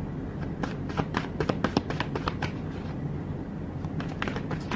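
Irregular light clicks and taps in two clusters, one starting about half a second in and another near the end, over a steady low hum.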